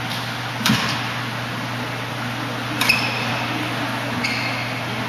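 Badminton rally: two sharp racket hits on the shuttlecock, about two seconds apart. Short shoe squeaks on the court floor come after the second hit and again near the end, over a steady hum of the hall.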